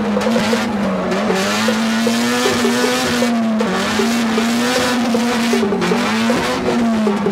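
Drift car engine held high in the revs, heard from inside the cabin. Its note sags briefly a few times, around three and a half and six seconds in, over a steady tyre screech.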